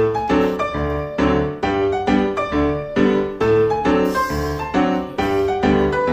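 Background music led by piano, playing a steady tune in evenly paced notes over a bass line.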